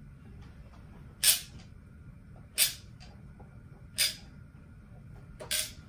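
Hand-pumped caulking gun squeezed four times at an even pace, about one short click-like stroke every second and a half, as it pushes intumescent mastic sealant into a pipe collar.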